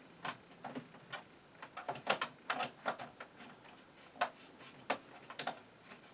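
Irregular light clicks and knocks, about fifteen of them, from desktop computer hardware and cables being handled and connected. The sharpest come about two seconds in, near the middle and near the end.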